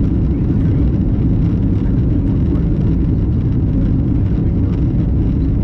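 Airbus A330 in flight, heard inside the cabin: a steady, loud low roar of engines and airflow.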